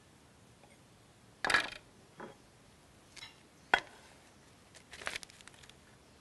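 A few light knocks and clinks of a plate and dishes being handled and set down on the worktop. The sharpest click comes a little before four seconds in, followed by a short cluster of clicks about five seconds in.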